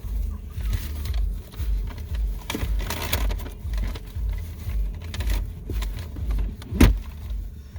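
Rustling and handling of paper food wrappers and napkins, with scattered small clicks and one sharp knock near the end, over a steady low rumble.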